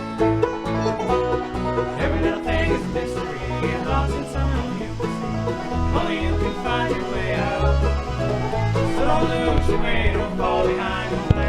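Background music: an instrumental country-style passage with plucked strings over a steady, pulsing bass beat.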